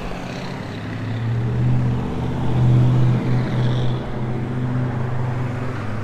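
Pickup truck towing a car trailer driving by: a steady low engine hum that swells to its loudest about halfway through, then eases off.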